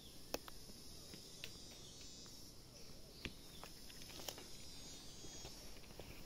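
Forest ambience: a steady high-pitched insect chorus, with about three faint sharp clicks scattered through it.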